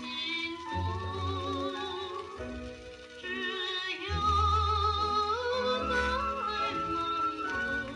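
A 78 rpm record playing through a Pierre Clement E25N pickup: an operatic singer holds long notes with wide vibrato over an instrumental accompaniment.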